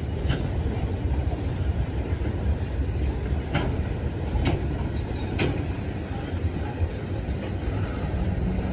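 Freight train of tank cars rolling past: a steady low rumble from the wheels on the rails, with a few sharp clicks as they pass.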